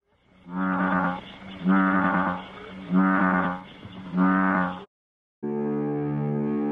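Bullfrog croaking four times, deep drawn-out calls about a second apart, which cut off suddenly. After a brief silence, a steady, sustained music drone starts near the end.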